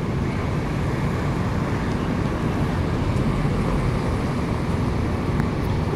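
Steady city traffic noise: a continuous low rumble of road vehicles with no distinct events.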